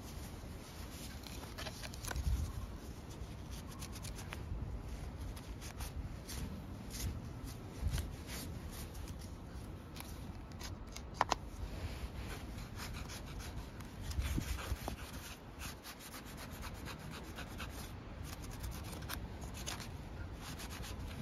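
A towel rubbing over the plastic recoil starter cover of a STIHL FS250 brush cutter, wiping off grass-juice grime, with light clicks and knocks as the cover is turned in the hand. One sharper click comes about eleven seconds in.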